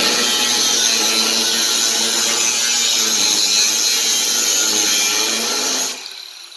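Handheld power tool working the metal of a truck tailgate hinge, running steadily and loudly, then switched off about six seconds in, its pitch falling as it winds down.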